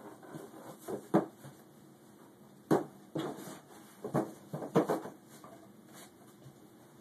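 A cardboard box with cardboard dividers being pushed and knocked about on a hard tiled floor by a toddler: a string of sharp thumps and short scrapes, the loudest about a second in and near three and five seconds in.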